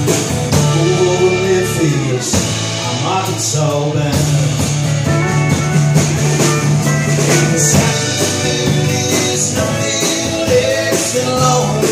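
A live band plays a country-rock song with guitar, bass and drum kit, carrying a bending lead melody over a steady beat.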